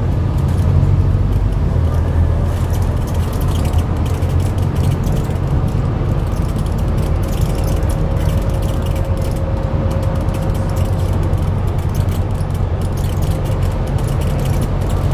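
Scania N230UD double-decker bus's 9.3-litre five-cylinder diesel engine pulling along at speed, heard from the upper deck as a steady low drone mixed with road noise and light rattling of the bodywork and fittings.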